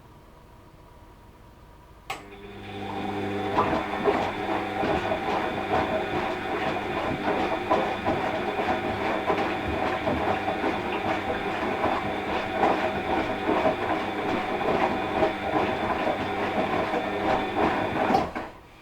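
Washing machine drum turning in the wash cycle. After a click about two seconds in, the motor spins up with a steady hum and whine over a dense churning clatter. It runs for about sixteen seconds, then stops abruptly near the end.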